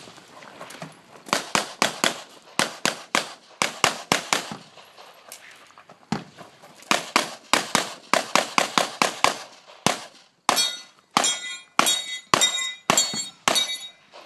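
Rapid gunfire from competition firearms at a 3-gun match: three quick strings of shots a few tenths of a second apart, the last string slower, with short pauses between strings.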